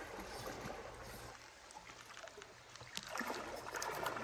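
Flowing creek water, then from about three seconds in a hooked fish thrashing and splashing at the surface.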